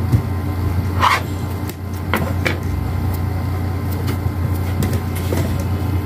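A steady low hum, with a few soft taps and clicks of hands working playdough on a plastic play table.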